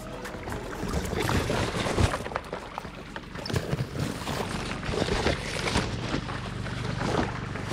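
Fast canal water rushing and splashing around a small thermocol foam boat, heard from the GoPro riding on it, with irregular knocks and slaps as the boat bumps along; the loudest slap comes about two seconds in.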